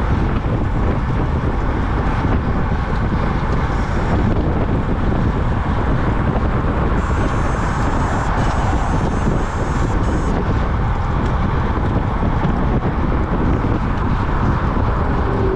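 Steady wind rush buffeting the microphone of a camera mounted on a road bike riding at speed, mixed with tyre and road noise and cars driving past in the next lane.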